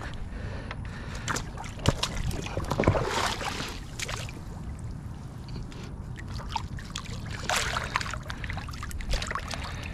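Water sloshing and splashing in a few irregular bursts as a caught gar is let go, over a steady low rumble.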